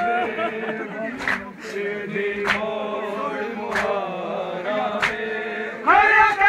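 Men chanting a nauha, a Shia lament, in slow unison, with a sharp slap about every second and a quarter: mourners beating their chests (matam) in time with the recitation. Near the end the chorus gets louder as more voices join in.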